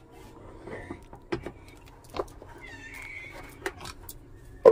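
Clicks and knocks of a steel mixer-grinder jar and its plastic lid being handled and set onto the motor base, with the sharpest knock at the end. A brief high-pitched chirp sounds about three seconds in.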